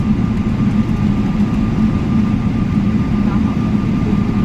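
Steady low rumble of a jet airliner heard from inside the passenger cabin, engines running as it taxis after landing, with a faint steady whine above it.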